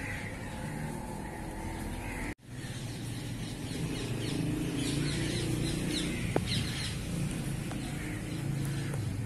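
Outdoor ambience: small birds chirping in short quick notes through the middle, over a steady low rumble. The sound cuts out for an instant about two seconds in.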